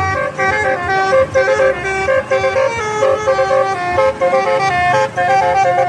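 Basuri telolet bus horn playing a quick tune of short, changing notes, several horn tones sounding together and repeating with brief gaps.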